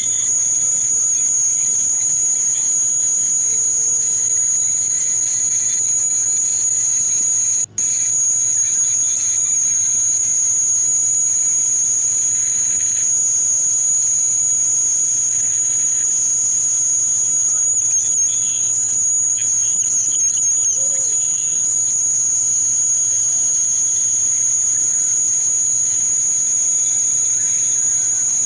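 A steady, shrill, high-pitched continuous tone over a faint low hum, dropping out for an instant about eight seconds in.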